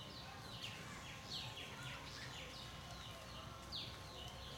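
Birds chirping: a quick, irregular string of short, high calls, each sweeping down in pitch, over faint low background noise.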